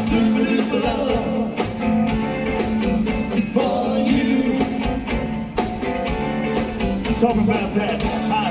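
Live rock band playing on stage: a singer over electric guitar, keyboards and drums, with a steady beat.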